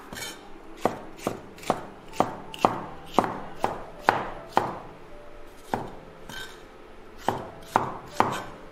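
Chinese cleaver chopping green bell peppers on a wooden cutting board: sharp knocks about two a second, with a pause of about a second and a half after the middle before the chopping resumes.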